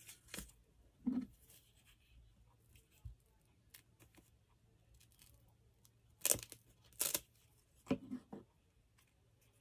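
Scrap paper strips being handled and torn, in short scattered bursts, with two louder tears about two-thirds of the way through.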